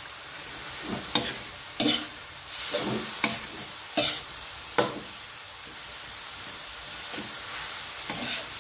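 Minced pork larb with offal being dry-fried in a wok: a steady sizzle, with the metal ladle scraping across the pan about five times in the first five seconds and a brief louder sizzle as the meat is turned, then steadier frying.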